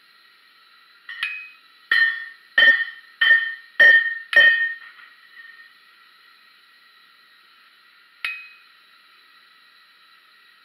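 Hammer striking a curved chisel held on a 3 mm steel flower blank on an anvil, chiselling veins into the petals: a quick run of about six metal-on-metal blows roughly two a second, then one more blow near the end. Each blow rings with a clear metallic tone.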